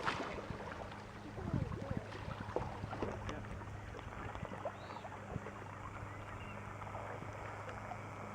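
Canoe being paddled on a lake: paddle and water noise, with a few sharp knocks in the first three seconds, over a steady low hum.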